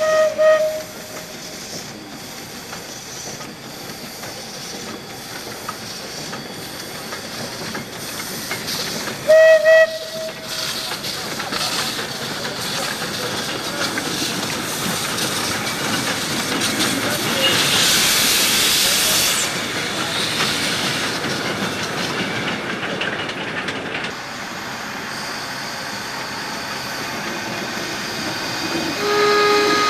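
Narrow-gauge steam locomotive with hissing steam and running noise. A short whistle blast sounds at the start and another about nine seconds in. The hiss grows louder in the middle, with a strong burst of high hiss around eighteen seconds, and a lower-pitched whistle sounds near the end.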